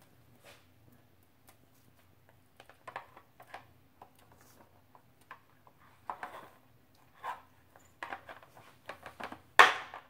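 An African grey parrot's beak picking through soft plastic toy fruits in a clear plastic tub, making scattered, irregular clicks, knocks and rattles. The loudest knock comes just before the end.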